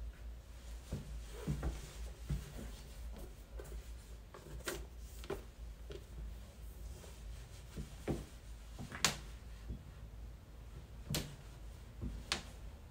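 Handling and movement noise from someone trying on a small leather shoulder bag: soft knocks and a handful of sharp clicks over a steady low hum, the loudest click about two-thirds of the way through.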